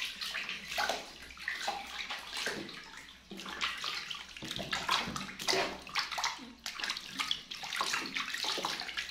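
Water splashing and sloshing in a bath in irregular bursts as a baby monkey is washed.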